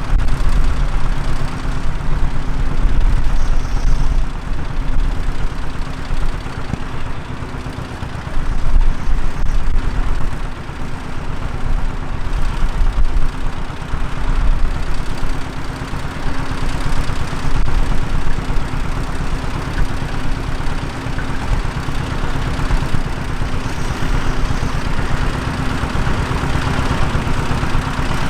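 Tractor engine running steadily, with a constant low hum.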